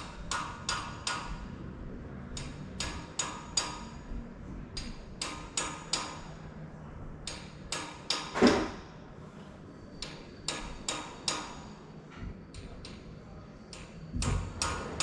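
Repeated sharp metallic strikes, each ringing briefly at the same pitch, in runs of three or four at about three a second with short pauses between runs. A single heavier, duller knock comes about halfway through.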